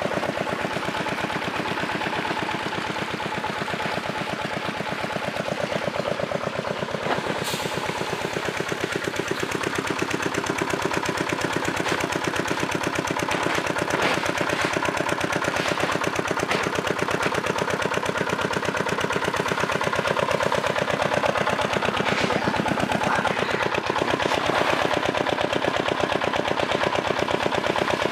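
A small engine running steadily with a rapid, even pulsing beat, with a few sharp knocks standing out from it.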